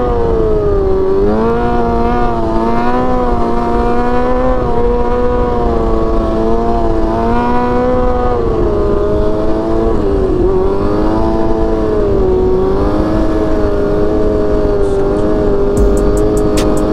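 Motorcycle engine running at fairly steady revs, its pitch easing up and down a little, with wind rushing over the microphone while riding.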